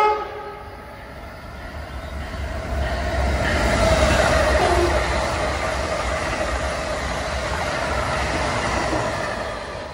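New-generation Amtrak Acela high-speed trainset passing at speed. A horn blast ends with a falling pitch at the start, then the rush of wheels and air builds, peaks about four seconds in, holds, and eases off near the end.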